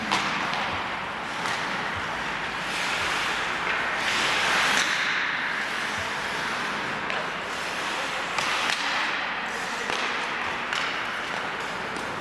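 Ice hockey skates scraping and carving on the ice, with several sharp clacks of sticks striking the puck.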